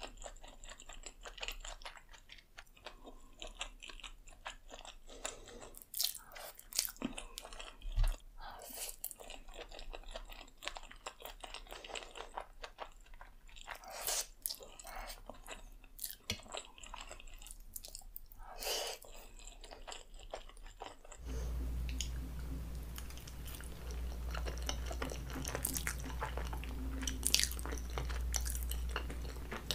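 Close-miked chewing of creamy alfredo spaghetti: wet mouth clicks and smacks at irregular intervals. About two-thirds of the way through, a steady low hum comes in under the chewing.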